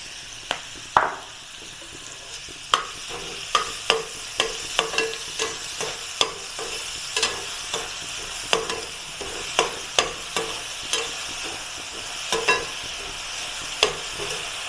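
Chopped onions sizzling in a tadka pan of hot ghee and butter, with a spoon stirring them and clicking against the pan about twice a second.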